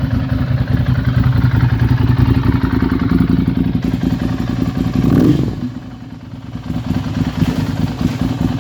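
Ducati Monster 796's air-cooled L-twin engine idling with a rapid, uneven firing beat. About five seconds in it is blipped briefly, rising in pitch, then falls back and settles into idle again.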